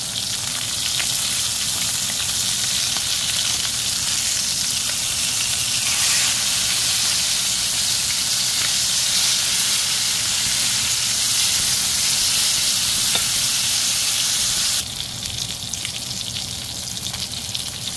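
Salmon fillets frying in butter in a pan: a steady sizzling hiss with small pops and crackles. The sizzle grows louder about six seconds in and drops suddenly about fifteen seconds in.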